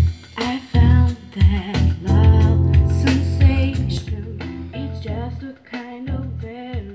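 A slow song with singing and guitar playing from a CD through a vintage hi-fi set: a JVC RX-212 receiver driving handmade two-way speakers, heard in the room. There is a steady bass line under the vocal.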